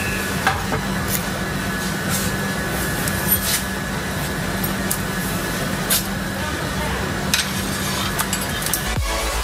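Steady hum and hiss, with a few light metallic clicks and clinks as steel heating elements are handled and fitted into a water heater. Electronic music starts near the end.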